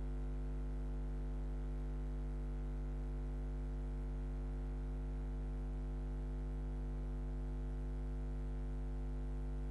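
Steady low electrical mains hum, a buzz at about 50 Hz with its overtones, carried on the audio line, with nothing else heard over it.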